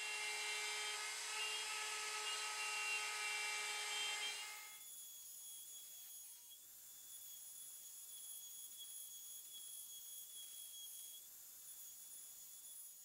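CNC router spindle running steadily as a 1/4-inch flat end mill cuts a pocket in bamboo plywood, a steady whine of several tones. About five seconds in it drops to a fainter, higher-pitched steady whine.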